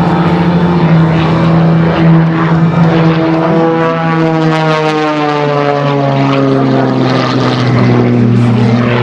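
MXS-RH aerobatic monoplane's piston engine and propeller buzzing loudly and steadily, its pitch sliding down midway through.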